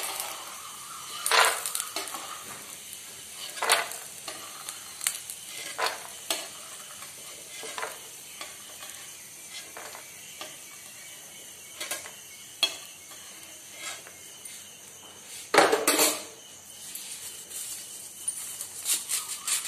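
Hot oil sizzling in a kadhai just after frying peanuts, with a metal ladle scraping and knocking against the pan several times as the peanuts are lifted out. The loudest clatter comes about 16 seconds in.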